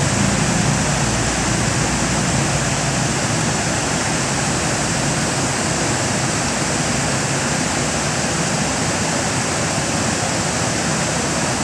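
Steady, unbroken rush of water pouring over a small weir (grojokan).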